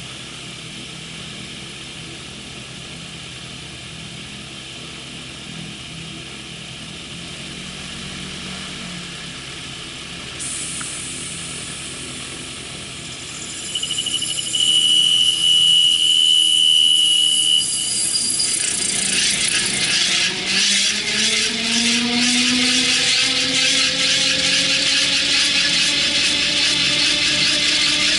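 MTO Sport autogyro's engine heard from the open cockpit, first running steadily at a low level. A high steady beep sounds for about three seconds in the middle. Then, from about two-thirds of the way in, it becomes much louder, with a rushing noise and a whine that slowly rises in pitch.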